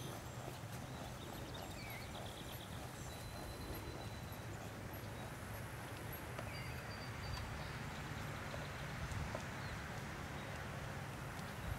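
Faint hoofbeats of a ridden horse on grass over steady outdoor background noise, with a few short bird chirps.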